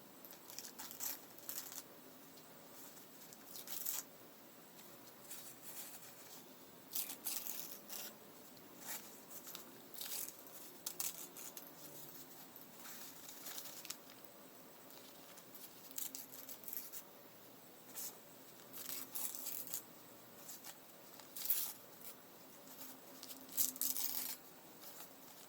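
Paper being torn by hand: a series of short rips at irregular intervals, some coming in quick clusters.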